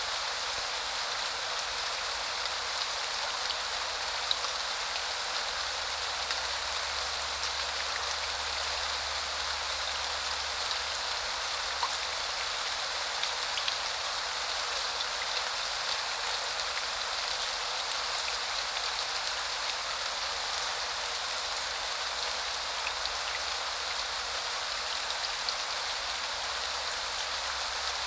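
Steady rain falling on hard surfaces: a constant hiss with many small, scattered drop ticks.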